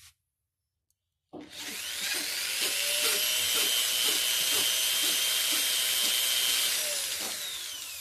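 Electric hand drill spinning a motorcycle engine valve against its seat with grinding compound, lapping the valve to stop a compression leak. The drill starts about a second in and runs steadily with a whine and a regular scraping tick, then spins down near the end.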